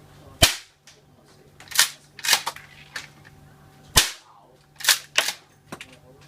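APS CAM 870 gas airsoft pump-action shotgun fired twice, a sharp crack about half a second in and another about four seconds in. After each shot the pump is racked back and forward with two softer clacks.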